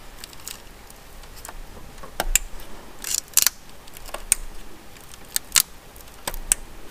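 Plastic engine wiring-harness connectors and clips being handled and pushed into place, giving a scatter of sharp clicks and light rattles at irregular intervals.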